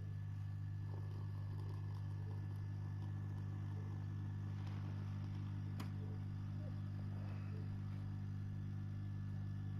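Bosch CTL636ES6 built-in coffee machine running with a steady low hum while it prepares a cappuccino.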